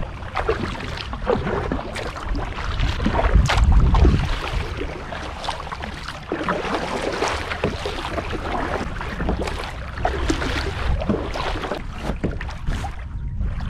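Water splashing and sloshing around a kayak as it is paddled along, in irregular bursts, with wind buffeting the microphone in a low rumble.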